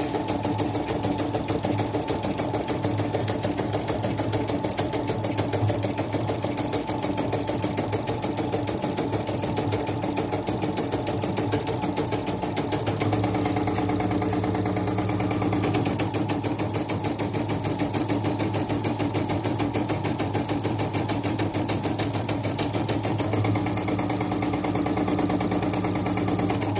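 Portable computerised embroidery machine (a Yoko clone of the CNY model) stitching steadily on a test run after repair, its needle going up and down in a fast, even clatter. A lower hum joins twice for a few seconds.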